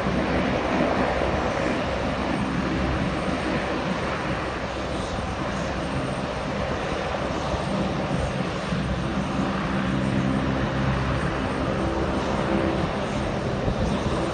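Four-engine turboprop airtanker of the C-130 Hercules type taxiing, its engines and propellers running in a steady drone with several steady low tones.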